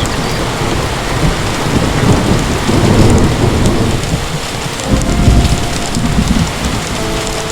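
Heavy rain pouring steadily, with low rolling thunder that swells twice.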